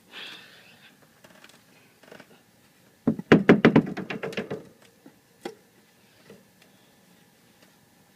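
A quick run of about ten loud knocks and rattles, about three seconds in, lasting about a second and a half, followed by a few faint single taps: hard objects being handled and bumped.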